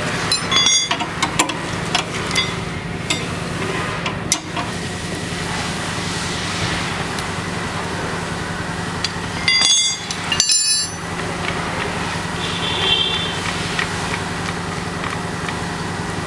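Car being lowered off a tyre jack: scattered metallic clicks and clinks of the jack and hand tools, with two louder ringing metal clanks about ten seconds in, over a steady mechanical hum.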